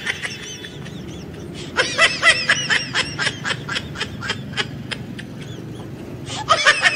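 A high-pitched, sped-up giggling sound effect: a rapid chain of short 'hee-hee' notes, about seven a second, starting about two seconds in and lasting about three seconds, with a second short burst near the end.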